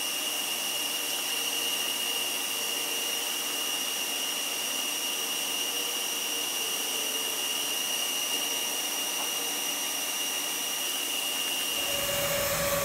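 TIG welding arc on stainless pipe fittings, a steady hiss with a thin high whine that stops near the end as the arc goes out.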